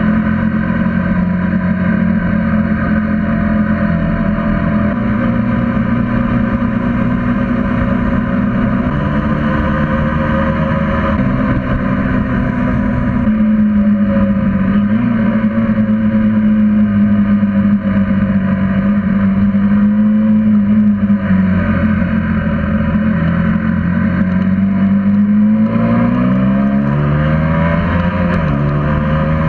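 Motorcycle engine running while riding along a road, steady for long stretches. The engine note dips and rises about halfway through and swings up and down again over the last few seconds as the throttle changes.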